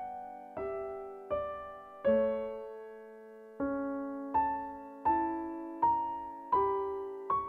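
Slow piano melody of single struck notes about every three-quarters of a second, each fading before the next. After one longer held note in the middle, the line climbs step by step.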